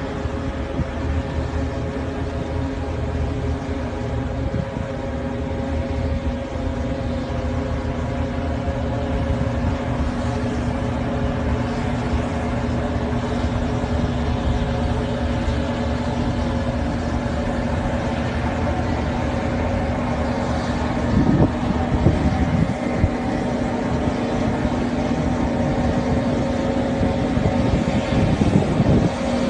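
Heavy diesel engines of a self-propelled modular transporter running steadily with a low, even hum, and a brief louder rush about two-thirds of the way through.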